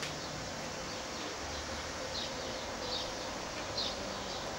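Short high chirps repeating about once a second over a steady background hiss, like a small bird calling.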